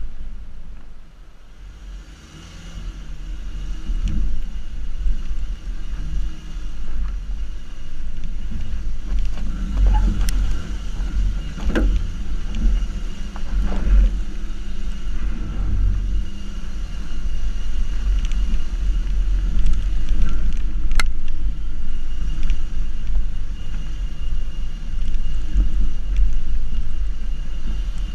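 Subaru XV driving slowly over a rough dirt track, heard through a camera mounted on the body beside the front wheel: a steady low rumble of tyres and body vibration, with a few sharp clicks scattered through.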